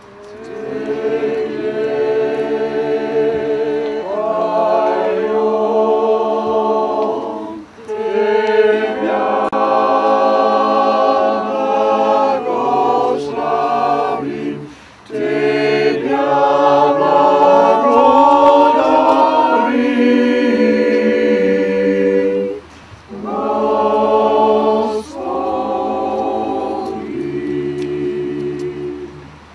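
Small mixed choir of men and women singing together in phrases of held notes, broken by short pauses about 8, 15 and 23 seconds in.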